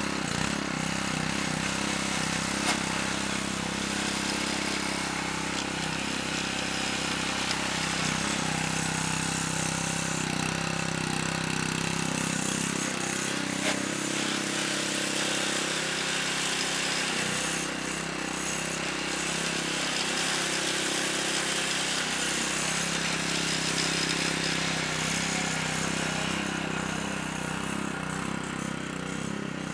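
Small gasoline lawnmower engine on a homemade robotic mower, running at a steady speed with an even, unchanging drone.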